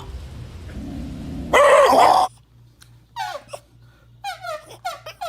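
A dog gives one loud, short howl in answer to a request for an "ow ow". Then comes a string of short whining yelps, each falling in pitch.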